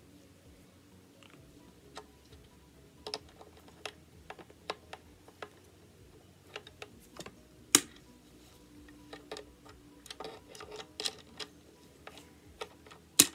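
Pliers clicking and scraping against the small steel nub of an SKS rear dust cover pin, in irregular light taps. Two sharper clicks stand out, one about eight seconds in and one near the end: the pliers keep slipping off the nub.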